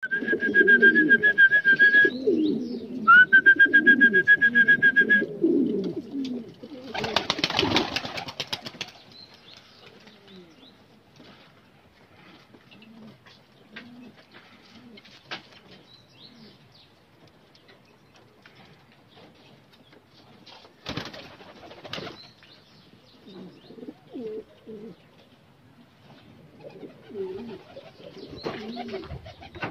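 Domestic pigeons cooing, with bursts of wing flapping as birds take off about a quarter of the way in, again about two-thirds through, and near the end. In the first five seconds a steady high whistling tone sounds twice, each time for about two seconds.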